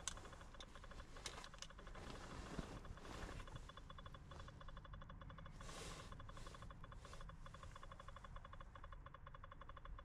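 Near silence: a faint steady hum with a few soft clicks and short rustles, the sound of a handheld scan tablet being held and tapped.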